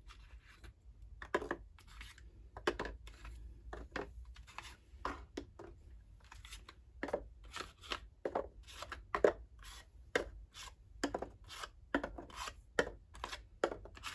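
Wax crayons being taken out of a crayon box and set one by one into the cells of a sectioned tray: irregular light taps and rattles, a little over one a second.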